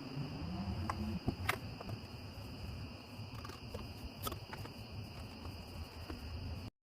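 Steady high-pitched insect chirring over a low rumble, with a few sharp clicks; the sound cuts off abruptly near the end.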